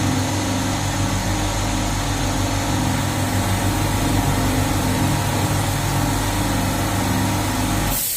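Mattress tape edge sewing machine running steadily, its motor humming with a faint repeating rhythm under a wash of mechanical noise; the sound cuts off suddenly near the end.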